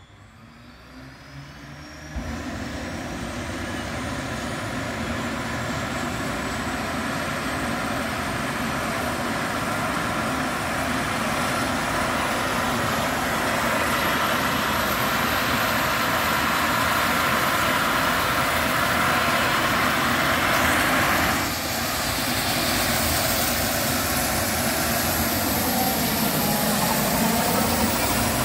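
Airbus H135 trauma helicopter starting up: the turbine whine rises steadily in pitch while the engine and rotor noise grows louder, with a sudden step up in level about two seconds in.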